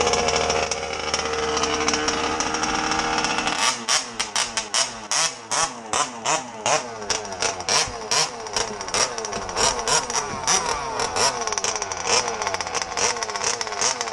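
The 48cc two-stroke petrol engine of a large-scale MCD XR5 RC buggy runs steadily. From about four seconds in it is revved in short, repeated blips, about two a second. The owner says the engine has a misfire.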